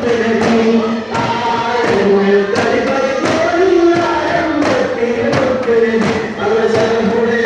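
Daf muttu: a group singing a devotional song in chorus, with daf frame drums struck in a repeating beat roughly every half second.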